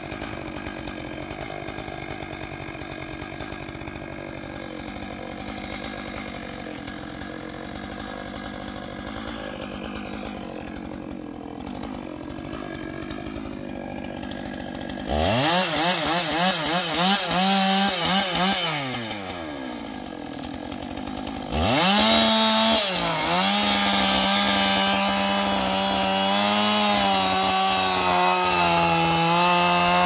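Chainsaw cutting into the base of a standing redwood trunk during felling. It runs low and steady at first, and about halfway in it goes up to high revs with the pitch swinging up and down for a few seconds. It drops back briefly, then holds at full throttle in a long steady cut from about two-thirds in, its pitch dipping slightly under load.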